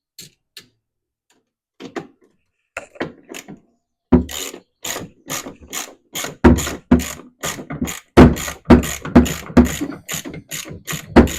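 Socket ratchet clicking as it is swung back and forth to tighten a master cylinder mounting nut: a few scattered clicks at first, then a steady run of about two to three strokes a second from about four seconds in, as the nut is run down snug.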